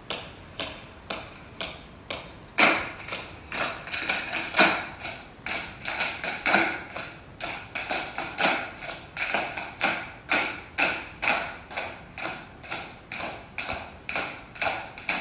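Tap shoes clicking on a hard studio floor in an a cappella tap routine by several dancers. Sparse taps for the first couple of seconds, then from about two and a half seconds in a steady rhythm of sharp clicks, about two strong beats a second with quicker flurries between.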